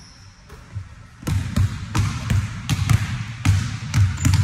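Basketball bouncing on a hardwood gym floor as it is dribbled, a string of sharp bounces about two to three a second starting about a second in.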